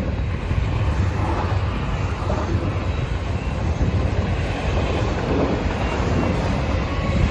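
Freight cars of a Norfolk Southern manifest train rolling past: a steady, continuous noise of steel wheels on rail.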